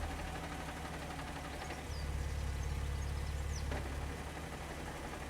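Vauxhall Insignia VXR's turbo V6 idling with a steady low drone, which grows louder about two seconds in and eases back near the end. This is the noise the owner puts down to the clutch, still present after the clutch was replaced.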